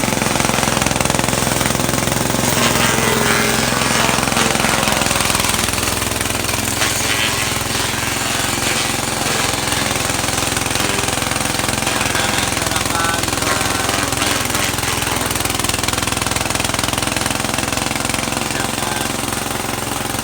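A motorised machine running steadily with a loud, dense rattle.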